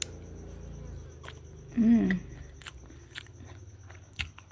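Close-up chewing of a mouthful of rice and sambal, with scattered wet mouth clicks. About two seconds in comes a short voiced 'mm', the loudest sound here.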